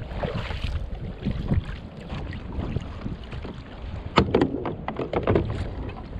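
Wind rumbling on the microphone aboard a small fishing boat. A quick run of sharp knocks and clicks comes about four to five seconds in.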